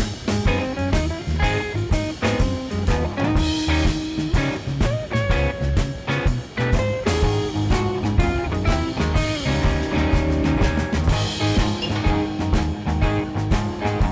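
Band music with guitar over a steady drum beat.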